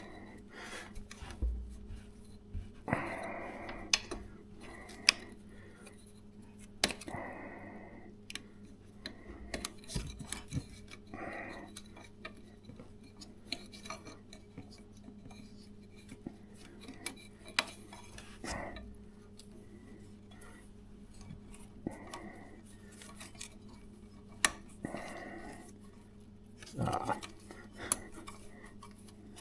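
Zip ties being fed through and pulled tight on an ATV's battery tender lead: several short ratcheting zips among scattered plastic clicks and taps, over a steady low hum.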